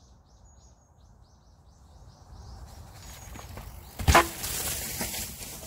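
Mountain bike moving off on a dirt trail: a rustle of tyre and wind noise swelling from about halfway through, with one sharp knock about four seconds in. Faint high chirping, about three chirps a second, in the first couple of seconds.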